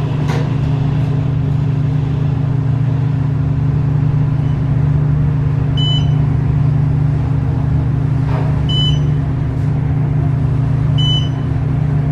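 Otis traction elevator cab riding upward with a steady low hum, and a short high beep three times, about six, nine and eleven seconds in, as the car passes each floor.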